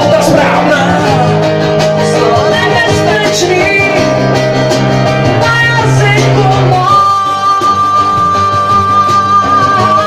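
Live unplugged band playing a song: acoustic guitar and singing, with one long held note through the last few seconds.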